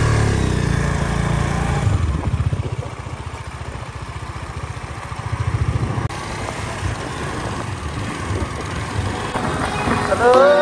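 Motorcycle engine running as the bike rides off and along the road, a steady fast-pulsing low rumble. Music comes in near the end.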